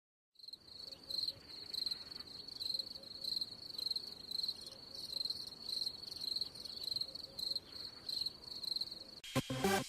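Crickets chirping in a high, evenly pulsing trill, the stock crickets sound effect. It starts about half a second in and stops just before the end, when clicks and music begin.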